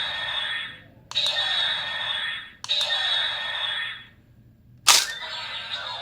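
Electronic sound effects from a DX Ultraman Omega transformation toy's small speaker: three similar short effects, each set off by a sharp plastic click, then a louder click about five seconds in that starts another effect.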